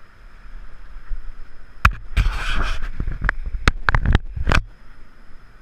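Raft paddles knocking and splashing: a run of sharp knocks with a short burst of splashing water in the middle, starting about two seconds in and lasting about three seconds.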